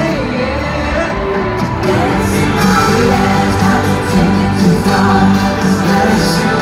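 A live pop band playing, with a singer's voice over the band, heard from the stands of an arena.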